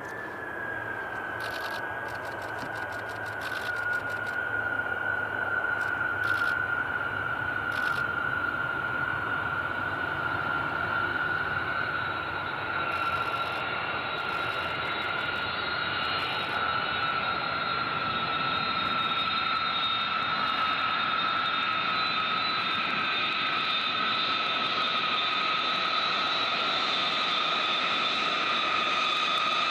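Boeing B-52 Stratofortress on landing rollout: the steady rush and whine of its eight TF33 turbofan engines at low power. The whine sinks slowly in pitch.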